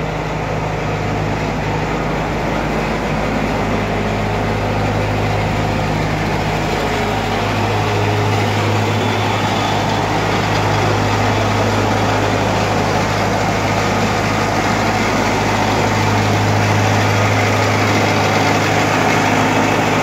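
150 kg industrial drum washing machine running: a steady low machine hum from its motor and turning drum, a little louder about seven seconds in.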